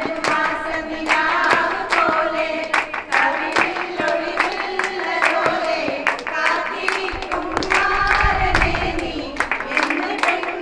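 A group of women singing a song together while clapping their hands in rhythm.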